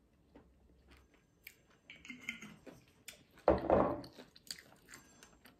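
Chewing and small wet mouth clicks close to the microphone, with one louder, brief thud about three and a half seconds in.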